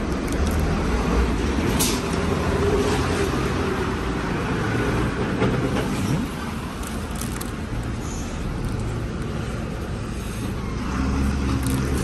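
Steady low rumble of road traffic, with the occasional crinkle of plastic food pouches being handled.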